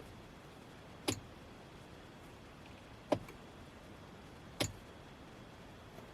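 Three single sharp clicks, spaced unevenly about one and a half to two seconds apart.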